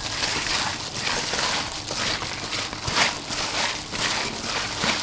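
A hand in a thin plastic glove tossing raw shell-on shrimp with chili powder in a stainless steel bowl: the glove crinkles and the shells rustle and squish against the metal in a quick run of repeated strokes.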